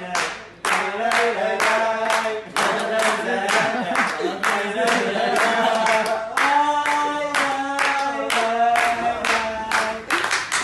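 A group of men clapping their hands in a steady rhythm, about three claps a second, with voices singing a song along with the clapping.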